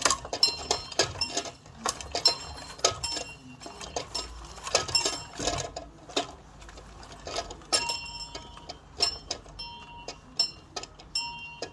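Small metal bell clanging on its rope, its clapper striking unevenly about three or four times a second, each strike a bright high ring that dies away quickly. The strikes are ragged because the bell is swinging without going up properly.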